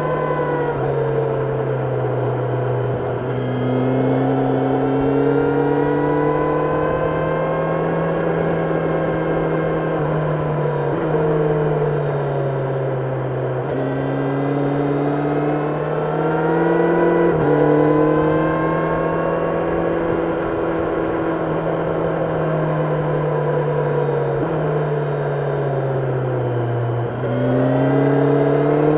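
Kawasaki Ninja 1000SX inline-four engine heard from onboard while riding through bends, its pitch rising under acceleration and falling off between corners, with several sudden steps in pitch at gear changes.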